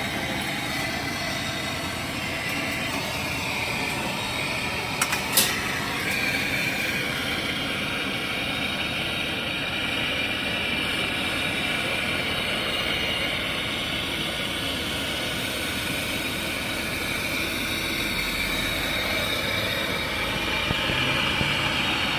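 Brazing torch flame hissing steadily on copper pipe, with a couple of sharp clicks about five seconds in.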